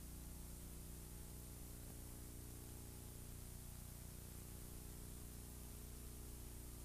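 Low-level steady hum with hiss and nothing else happening: background noise of an old recording.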